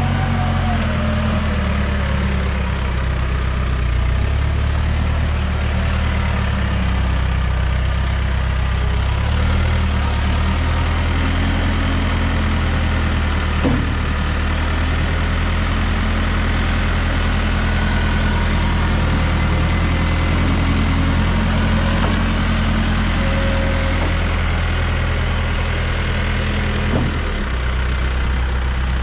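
Diesel engine of a Case 580 Super M loader backhoe idling steadily, its pitch shifting slightly a couple of times, with two brief knocks about halfway through and near the end.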